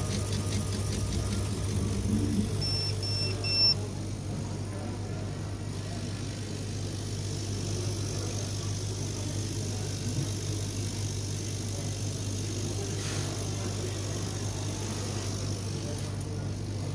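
GARDEN 9060 laser engraving machine running while engraving malachite: a steady low hum, with a quick regular ticking in the first second or so and three short high beeps about three seconds in.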